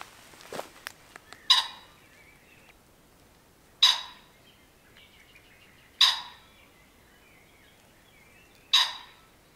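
Male common pheasant giving four short, harsh calls about two seconds apart, with faint birdsong between them.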